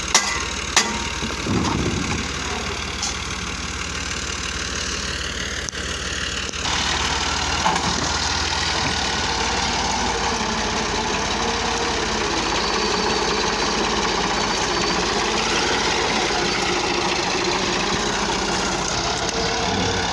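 Massey Ferguson diesel tractor engine running while hauling a trolley heavily loaded with sand, so heavy that the tractor's front wheels lift off the ground. A couple of sharp knocks sound near the start. About six and a half seconds in the engine sound steps up louder and then holds steady.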